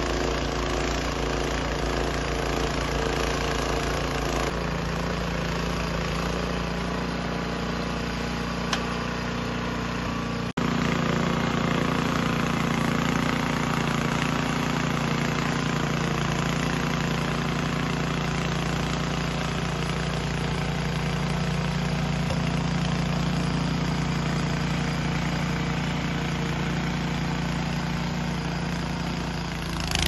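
Gas-engine snowblower running steadily under load while its auger and impeller throw snow out of the chute. The sound breaks off briefly about ten seconds in, then carries on slightly louder.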